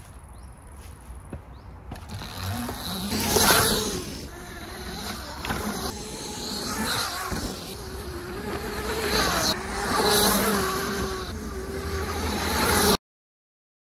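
Electric MRF bike on the move: a wavering electric-motor whine over wind and tyre noise, swelling and fading several times, then cut off abruptly near the end.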